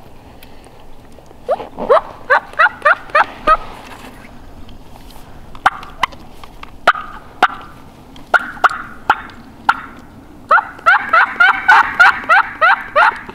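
Turkey yelping: a run of about seven loud rising yelps, a few sharp clucks, a short softer run, then a long run of about a dozen loud yelps near the end.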